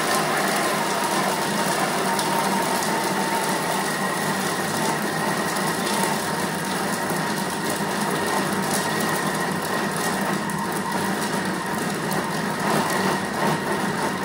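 Thermomix TM6 blending Biscoff spread on speed 7, its motor and blade running steadily with a faint whine over a dense churning noise. The blade is working the thick chilled spread smooth.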